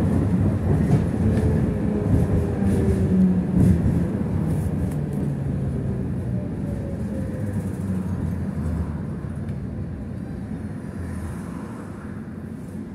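BKM 60102 tram heard from inside: low rumble of wheels on rails, with a faint whine from the drive that slides down in pitch. It grows steadily quieter as the tram slows.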